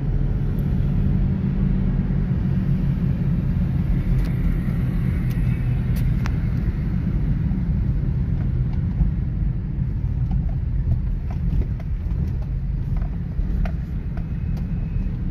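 Toyota Corolla XLi's four-cylinder petrol engine running smoothly at low revs while the car drives slowly, a steady low hum with road noise heard from inside the cabin. It runs without misfiring now that a loose ignition connector ('grip') has been refitted.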